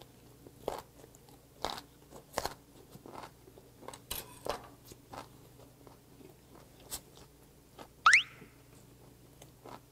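Close-miked crunchy chewing of a mouthful of gwamegi (semi-dried saury) wrapped with crisp seaweed stems, with irregular crackling crunches. About eight seconds in, a short, loud, rising whistle cuts in, a video sound effect.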